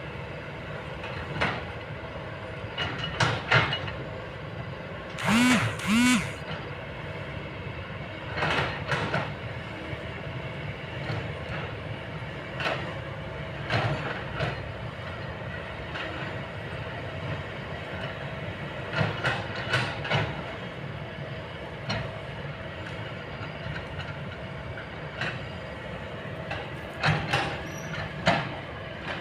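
Kobelco long-boom excavator working: a steady engine hum with irregular metal clanks and knocks, and two short squeals about five and six seconds in.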